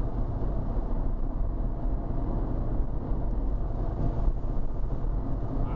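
Car driving at highway speed, heard from inside the cabin: steady tyre and road noise, loudest in the low range.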